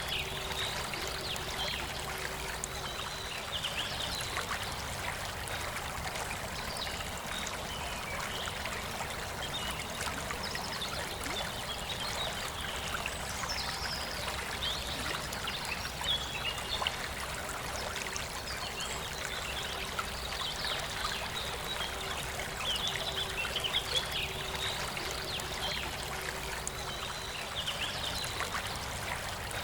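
A forest river flowing and trickling steadily, with birds chirping in short bursts every few seconds.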